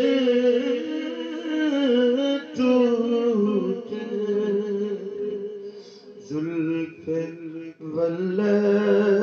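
Solo male voice chanting a naat in long held, wavering notes, with short breaks for breath about six and eight seconds in.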